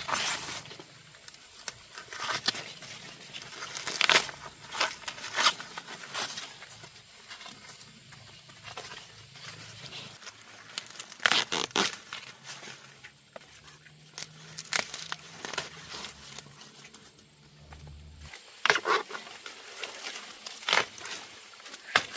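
Dry corn leaves and husks tearing and crackling in irregular bursts, as corn is handled during the harvest, with rustling in between.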